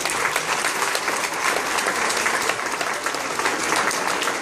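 Applause: many hands clapping at a steady level.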